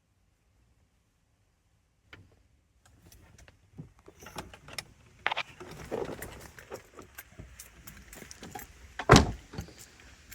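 Small clicks, knocks and rustling of things being handled, starting about two seconds in and growing busier, with one loud thump near the end.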